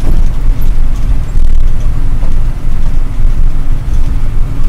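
Ashok Leyland 1613 truck's diesel engine running at road speed, heard from inside the cab as a loud, steady low drone with road noise.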